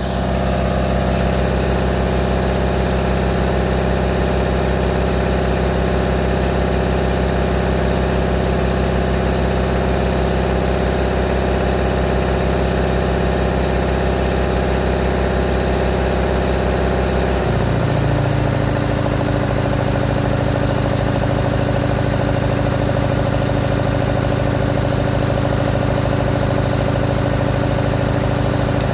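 1965 Onan generator's gasoline engine running steadily on compressed hydrogen with oxyhydrogen (HHO) gas fed in. About 17 seconds in, its note drops to a slightly lower pitch and holds there.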